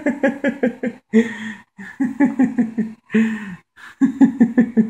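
A man laughing: quick runs of short voiced bursts broken by gasping in-breaths.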